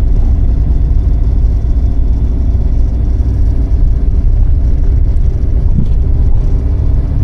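A vehicle being driven on a mountain road: a loud, steady low rumble of engine and road noise.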